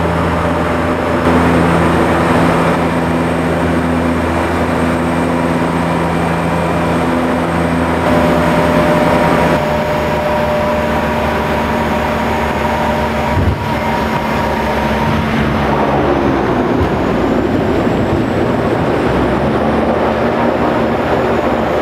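Seaplane engines and propellers droning steadily, heard inside the cabin. The pitch of the drone shifts about ten seconds in and again around sixteen seconds as the engine settings change.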